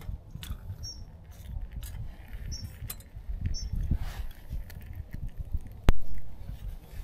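Kindling catching in a Firebox stainless-steel wood stove just after being lit, with faint ticking and crackling under an uneven low rumble. A small bird chirps briefly four times, and one sharp click comes about six seconds in.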